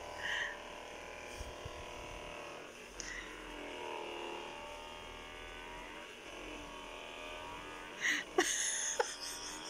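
Handheld percussion massage gun running: a steady electric motor hum whose pitch dips and rises as its ball head works against the lower back.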